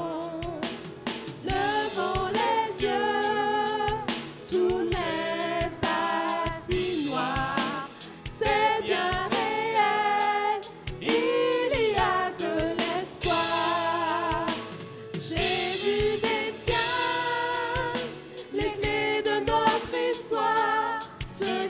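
Gospel song sung by a man and two women in harmony over a steady drum beat.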